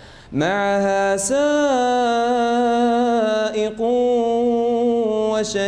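Male voice reciting the Quran in melodic tajwid style, holding long drawn-out notes that bend slowly in pitch, with a brief pause for breath at the start and another shortly after the middle.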